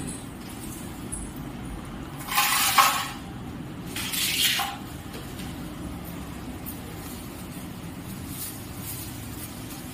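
Two short clinking, clattering noises of household items being handled, about a second and a half apart, the first louder, over a steady low hum.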